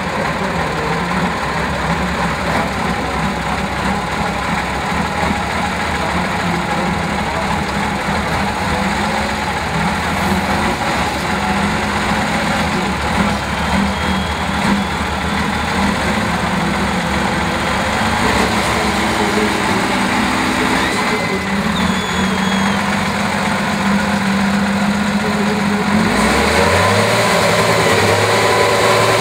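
Praga V3S trial truck's diesel engine running at low revs as the truck crawls through deep mud, then revving up sharply near the end.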